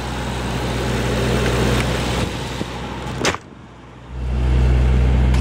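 Hood of a Mercedes-Benz S65 AMG shut with a single slam about three seconds in, over a steady low hum. The hum drops away briefly after the slam and comes back louder about a second later.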